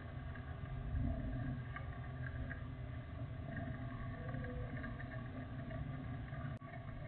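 Jet airliner rolling on the runway, heard from a distance as a steady low rumble.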